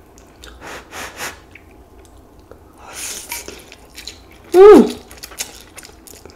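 A person slurping and chewing saucy stir-fried ramen noodles close to the microphone, with wet slurps and mouth clicks. About four and a half seconds in comes a loud "mmm" of enjoyment that falls in pitch.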